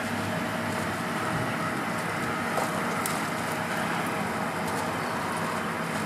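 Slices of white bread sizzling as they are laid on a hot, oiled flat-top griddle: a steady hiss with a few light ticks.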